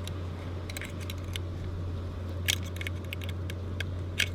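Light metallic clicks and clinks of camp cookware being handled, coming in small clusters over a steady low background rush.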